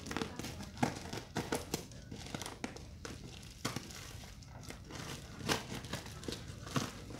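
Plastic wrapping and packing tape on a parcel crinkling and tearing in irregular crackles as a box cutter slices it open and hands pull it apart.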